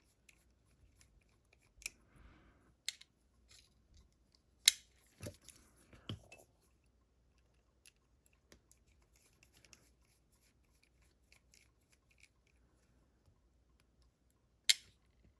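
Scattered sharp metallic clicks and light taps from small tools and lock parts being handled while a lock cylinder is taken apart, with a loud click about five seconds in and another near the end.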